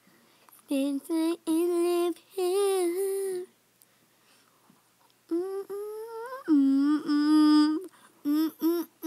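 A girl humming a wordless tune in several short phrases close to the microphone, with an upward slide in pitch about five seconds in and a long held note after it.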